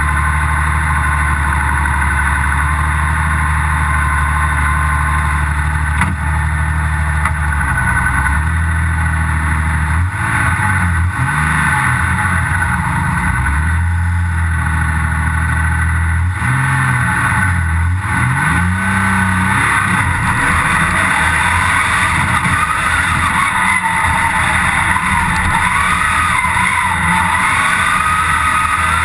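A competition car's engine heard from inside the cabin, running steadily at first, then revved up and down repeatedly for about ten seconds. In the last part a higher whine rises and falls as the car drives off up the hillclimb track.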